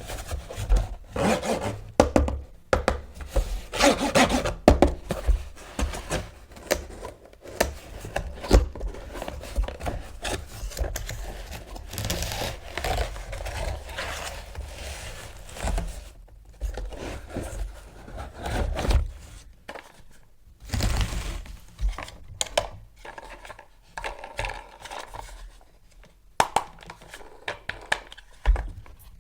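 Hands handling toy parts and packaging, with irregular rubbing and scraping and scattered clicks and knocks throughout.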